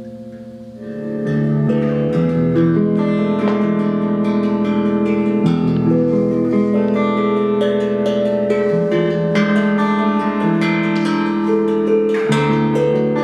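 Improvised ambient music: a hand-struck steel tongue drum ringing overlapping sustained notes, with electric guitar. The music swells up about a second in and then stays full.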